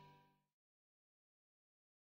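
Near silence: the last faint trace of fading background music dies out about half a second in, then total silence.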